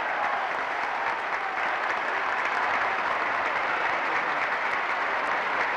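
Large crowd applauding steadily, greeting the end of a speech.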